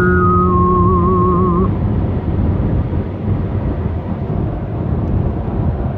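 Wavering, vibrato music tones cut off about a second and a half in. They leave the steady low rumble of a car on the move, heard from inside the cabin.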